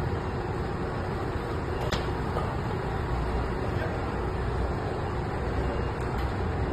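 Steady city street noise: a deep, even rumble like road traffic, with a faint click about two seconds in.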